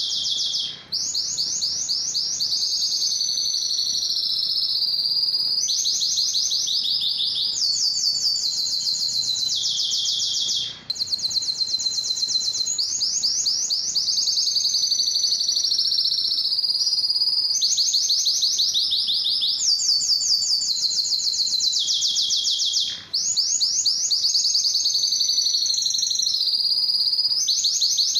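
Male domestic canary singing a long, high-pitched song of fast trills and rolling runs of repeated notes, changing from one trill to the next every second or two. The song is broken by three short pauses.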